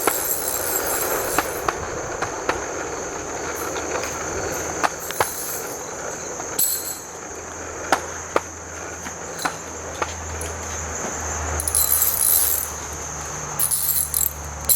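Scattered sharp clicks and knocks over a steady high chirring of crickets.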